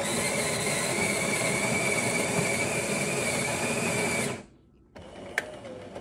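Jura Z6 automatic coffee machine's built-in grinder running steadily with a high whine for about four seconds as it grinds the beans for a shot, then stopping abruptly. A quieter whirring with one sharp click follows.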